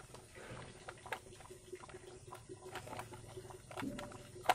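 Irregular light clicks and knocks of plastic toy vehicles being handled, bumped together and set down on concrete.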